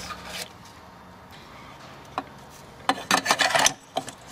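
Metal clicks and clinks of the oil tank cap being handled on the Rotax 912's oil tank filler neck, with a short cluster of rattling clinks about three seconds in as the cap is set loosely on top.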